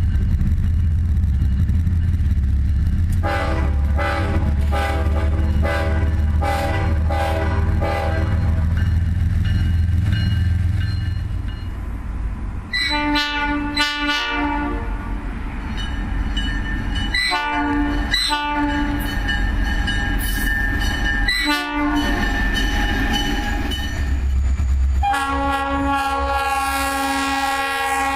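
Diesel freight locomotive's air horn sounding a series of blasts: a long chord of several seconds, then several short blasts, then another long blast near the end. A low, steady locomotive rumble underlies the first half.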